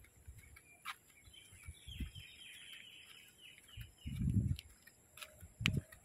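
A rapid run of high chirping notes lasting about a second and a half, over dull low thumps about two seconds in, about four seconds in (the loudest) and near the end.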